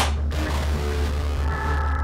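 Background music: a steady low droning pulse, with one sharp hit at the very start and a chord of high held tones coming in about one and a half seconds in.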